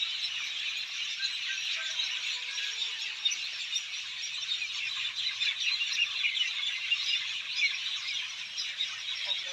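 A dense chorus of many small birds chirping and chattering at once, a steady crowded mass of high, short calls.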